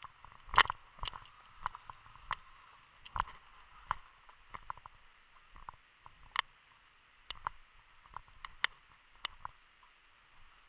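Footsteps through tall dry grass and undergrowth: irregular crunches and rustles, about one or two a second.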